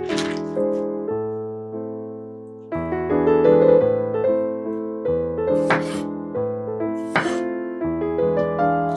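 Piano or electric-piano music: chords struck and left to ring and fade, swelling louder about three seconds in, with a few short noisy hits over the notes.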